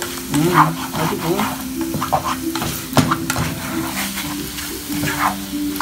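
Mortadella and egg sizzling in oil in a non-stick frying pan, with a plastic spatula stirring and scraping the pan. There is one sharp tap about three seconds in.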